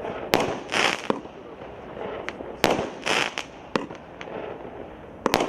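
Consumer firework battery (cake) firing shots: each sharp launch pop is followed about half a second later by a hissing burst of the aerial break. A few shots go off, a second or two apart.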